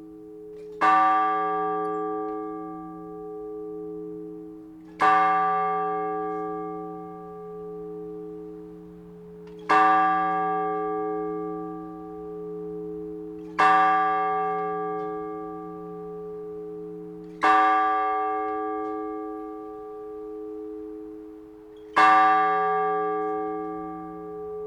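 A single large Orthodox church bell struck slowly and evenly, six strokes about four to five seconds apart, each ringing out long with its hum running on under the next stroke. The measured single-bell strokes are those of the blagovest, rung to announce the start of a service.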